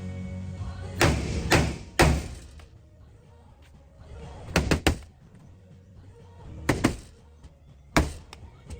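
A series of sharp knocks from paintless dent repair tool work on a truck's body panel: three about half a second apart, a quick triple near the middle, then a pair and a single near the end.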